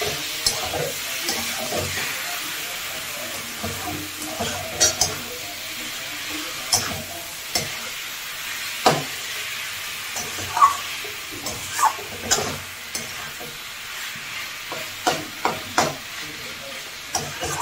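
Chicken mince frying in oil and masala in a metal kadai over a high flame, with a steady sizzle, while a spatula stirs and scrapes it, giving irregular sharp clinks against the pan.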